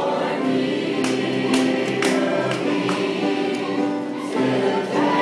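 Mixed choir of young men and women singing a hymn together, holding sustained notes that move from one pitch to the next.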